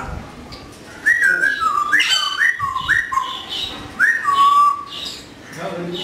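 African grey parrot whistling: a run of about five clear whistled notes, each sliding down in pitch, the last one drawn out longer.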